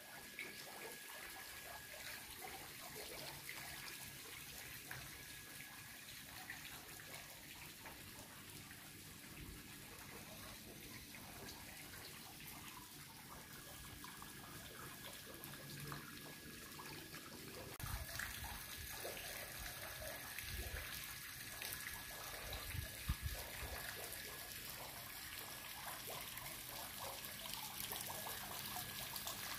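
Faint, steady trickle of water from a small fountain spilling into its pool.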